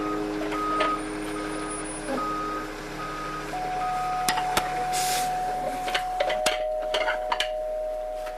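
Electronic beeping, a short beep repeated a little over once a second like a reversing alarm, over several steady tones; the beeping stops about four seconds in. Then a brief hiss, scattered clicks, and steady tones that change pitch.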